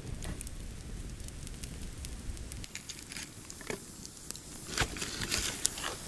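Open wood fire crackling, with scattered sharp pops and a few louder ones in the last couple of seconds, over a low rumble.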